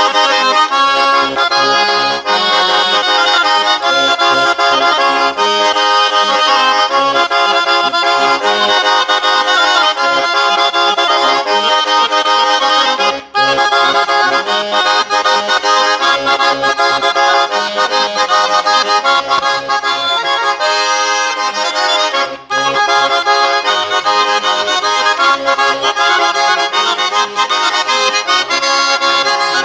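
Diatonic button accordion (organetto) playing a tarantella, dense chords and melody running continuously, with two very brief breaks partway through.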